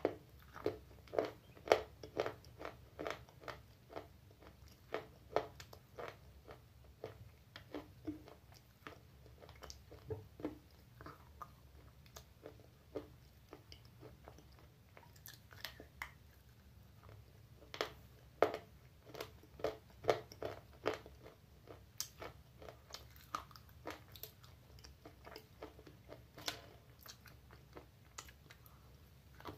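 Slate pencil being bitten and chewed close to the microphone: sharp, dry crunches coming in quick clusters, with a few sparser pauses.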